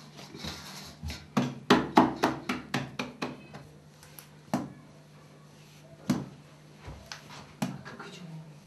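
Hands working bread dough and pressing it down on a table: a quick run of knocks, about four a second, then single knocks a second or so apart, over a steady low hum.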